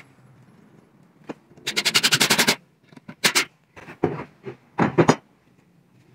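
Cordless drill ratcheting in a rapid run of sharp clicks, about ten a second, for about a second, then a shorter run. A few wooden knocks follow as boards are handled.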